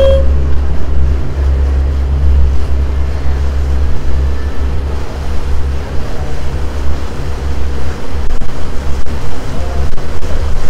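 A passenger boat's engine runs with a steady low drone under water and wind noise. The tail of a horn blast cuts off right at the start.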